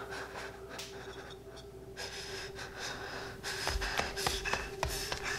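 A steady held note under quiet breathing. From about halfway there are footsteps and light knocks as someone walks across a room.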